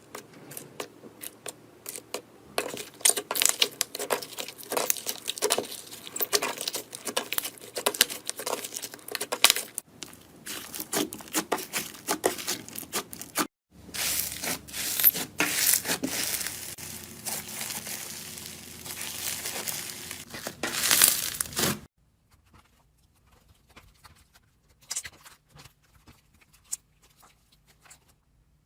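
Slime being squeezed and worked by hand, making dense wet crackling and popping clicks. Hard cuts at about ten, thirteen and twenty-two seconds change the texture. The last few seconds are much quieter, with only scattered faint pops.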